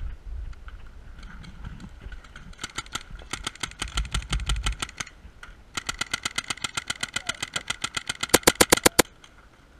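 Emek EMF100 paintball marker firing rapid semi-automatic strings, sharp pops about ten a second. A short burst comes first, then a longer string after a brief pause, loudest near its end.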